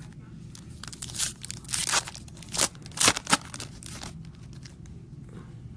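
Foil wrapper of a trading card pack being torn open and crinkled, in a quick run of sharp rips and crackles about a second in.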